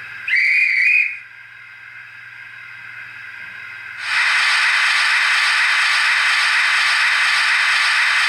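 Sound decoder in a Hornby OO model of the Lord Nelson class steam locomotive 30850, playing recordings of the preserved Lord Nelson through the model's small 28 mm speaker. A short steam whistle blast sounds near the start, then a low hiss, and about halfway a loud steady hiss of escaping steam starts suddenly.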